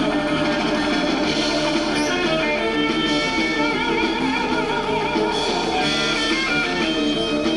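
Music with guitar playing at a steady level, carrying on without a break.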